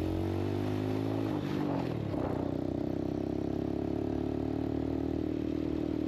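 Quad bike engine running as the bike rides along, its pitch shifting during the first couple of seconds and then holding steady.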